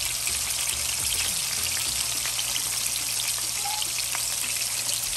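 Beef steak cubes sizzling in hot oil in an electric skillet: a steady hiss with many small scattered pops.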